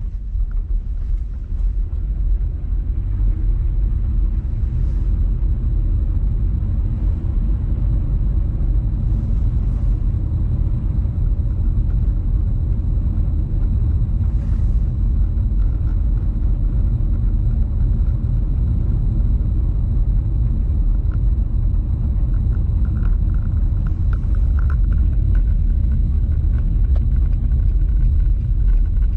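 Steady low rumble of a car on the move, with road and engine noise heard from inside.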